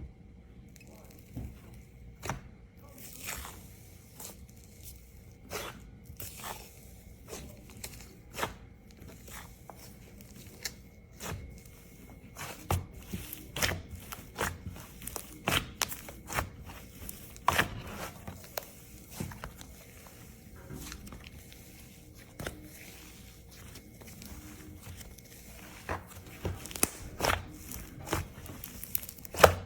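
Slime being squeezed and worked by hand, giving irregular sticky clicks and crackles that come thicker in the middle and near the end.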